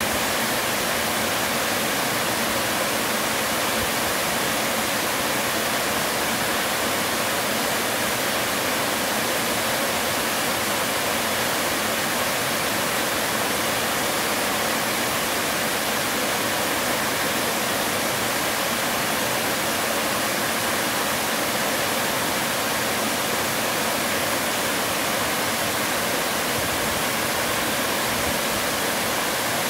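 Wide, stepped waterfall pouring over rock ledges: a steady, even rush of falling water, mostly hiss with little deep rumble.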